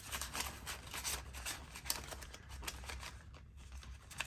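Paper banknotes rustling and a clear plastic zipper envelope crinkling as cash is handled and slipped into a binder wallet, in a run of short, irregular rustles and clicks.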